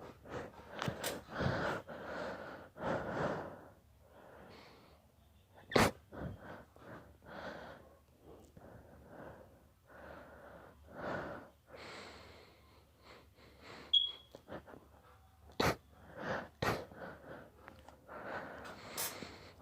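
A man sneezing over and over in an induced sneezing fit. Noisy breaths build up between several sharp, sudden sneezes: the loudest comes about six seconds in, and three more come near the end.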